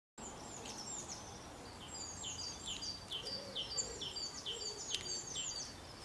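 Small songbirds calling: a fast run of high chirps, each sweeping down in pitch, about three a second and overlapping in the second half, over a faint outdoor hiss, with two sharp ticks near the middle.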